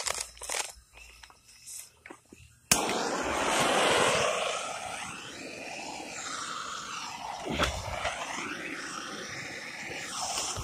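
Hissing as a firework cake's fuse is lit: a click about three seconds in, then a steady hiss. A sharp tick comes about two-thirds of the way through.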